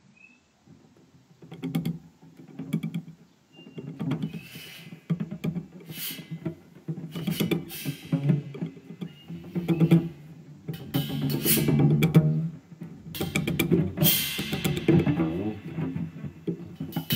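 Jazz quartet of cello, guitar, double bass and drum kit starting a track about a second in after silence, with sharp, irregular drum and cymbal hits over the strings.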